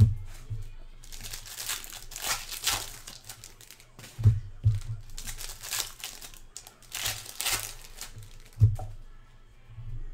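Baseball card pack wrappers being torn open and crinkled by hand, in repeated bursts, with a few dull thumps of handling.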